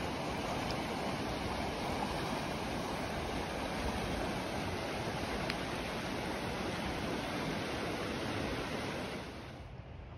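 Swollen, fast-flowing river rushing with a steady, even roar of water. It drops off sharply near the end, leaving quieter outdoor background.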